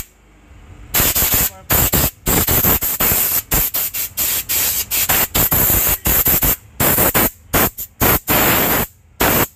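Handheld steam-cleaning gun of a mobile steam car-wash unit hissing as it jets steam into a car's floor carpet. The trigger is pulsed, giving many short hissing blasts with brief breaks, starting about a second in.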